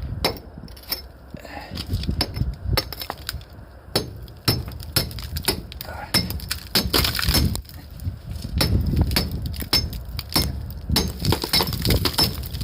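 Loose, spalled chunks of precast concrete being broken away and falling as rubble: a quick, irregular run of sharp knocks and clinks that gets busier about halfway through. The concrete has been cracked by rusting steel rebar expanding inside it.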